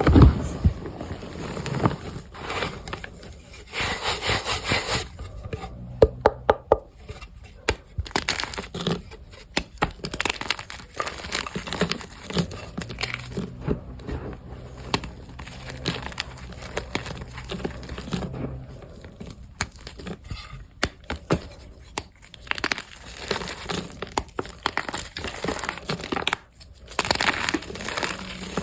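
Crunchy reformed gym chalk blocks crushed by hand, crumbling and crackling in many small irregular snaps, with short gritty stretches of powder being worked.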